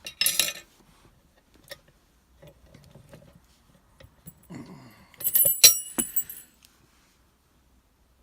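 Metal clinking and jangling as a just-picked Abus 72/40 padlock and lockpicking tools are handled: a short rattle at the start, a few small ticks, then a louder, ringing metallic clatter about five seconds in.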